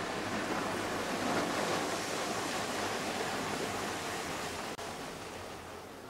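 Sea waves washing against a rocky shore: a steady rushing hiss, with a faint, steady low hum underneath.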